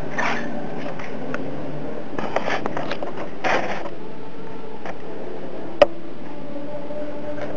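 Walkera 9g micro servos on a radio-controlled helicopter's CCPM swashplate whirring in three short bursts as the transmitter sticks are moved, with the rotor not spinning. A single sharp click comes near the end.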